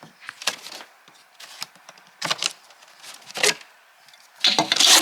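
Cardboard bike box and packaging being handled and opened: four short scrapes and rustles, then a longer, louder stretch of rustling about four and a half seconds in.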